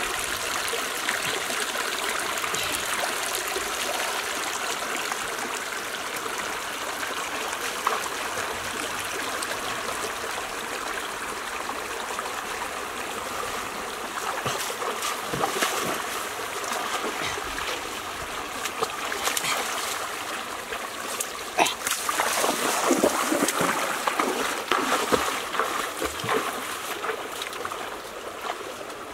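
Shallow rocky stream running steadily, with irregular splashes of someone wading through the water, busiest in the last third.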